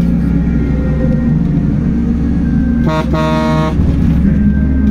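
Steady rumble of a vehicle driving on a highway, with a vehicle horn honking about three seconds in: a short toot followed at once by a longer blast.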